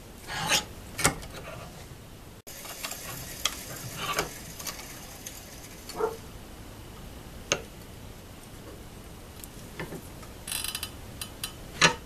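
Metal latch prototype pieces, a flat strip and a rod, being handled and shifted in a bench vise: scattered sharp clicks, clinks and scrapes, a quick run of them near the end, over a steady hiss.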